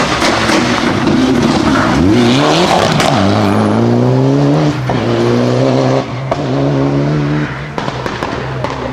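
Mitsubishi Lancer Evo IX rally car's turbocharged four-cylinder engine accelerating hard. The revs climb steeply about two seconds in, then stay high with brief breaks at each upshift. A few sharp cracks come near the end as the sound fades away.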